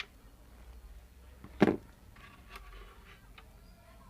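Handling noise from a mixer grinder being taken apart: one sharp knock about one and a half seconds in, with a few lighter clicks around it.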